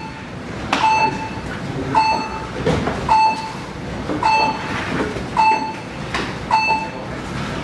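An electronic beeper sounding a short, mid-pitched beep about once a second, each beep starting with a sharp click, over steady background noise.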